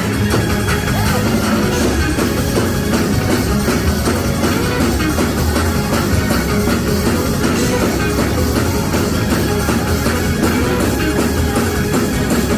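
Church band playing loud, continuous praise-break music with a driving beat.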